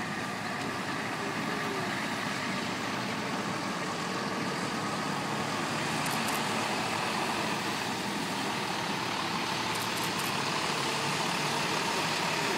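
Tow trucks driving past in a slow procession: a steady mix of truck engines and road noise that grows slightly louder.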